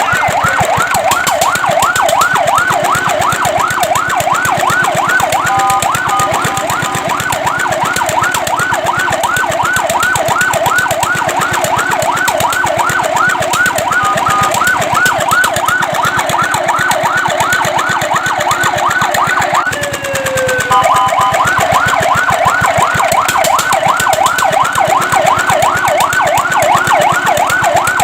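Fire truck siren on a fast yelp, about four rising-and-falling sweeps a second, broken a few times by a brief steady note. About two-thirds of the way in it drops away in a short falling glide, then starts again.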